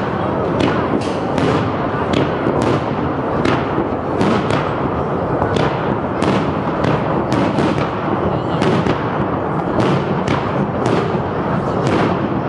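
Aerial firework shells bursting in rapid, irregular succession, about two sharp bangs a second, over a steady din.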